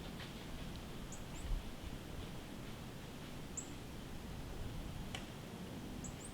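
Small bird giving short, very high, thin chirps, about five in all, over a faint low background hiss. A single sharp click comes about five seconds in.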